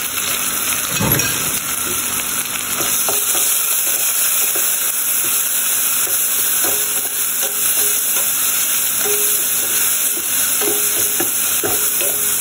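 Chopped onion, curry leaves, garlic and ginger sizzling in hot oil in a stainless steel pot while a spatula stirs and scrapes through them: the aromatics being tempered for a dhal curry. A dull knock about a second in.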